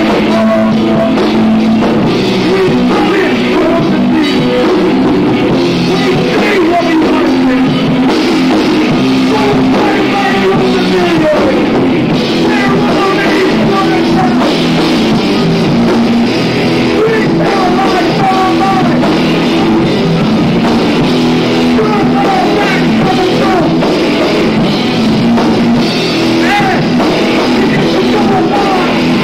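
Rock band playing loud and without a break in a live club set, with drums, guitar and a singer's vocals on the microphone.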